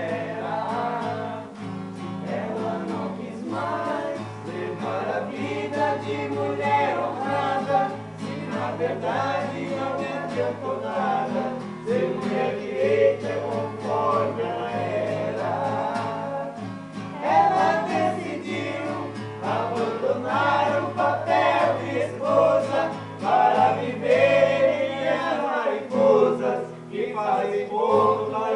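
A song: several voices singing together over plucked guitar accompaniment.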